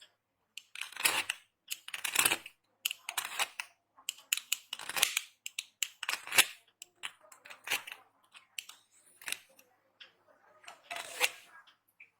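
Dry soap being cut and crushed: a run of crisp, crunchy strokes, irregular, about one or two a second.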